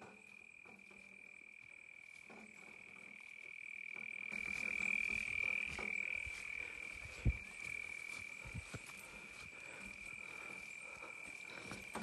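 Steady high-pitched night chorus of calling frogs and insects, growing louder a few seconds in. Light footsteps through grass, with a couple of dull knocks just past the middle.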